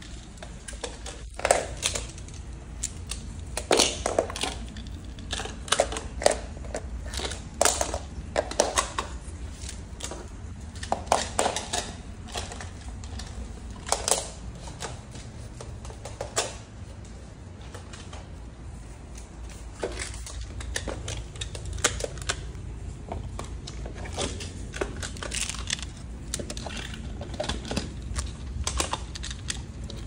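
Plastic magnetic building tiles clicking and clacking as they snap together and are picked out of their box, in irregular sharp clicks over a steady low hum.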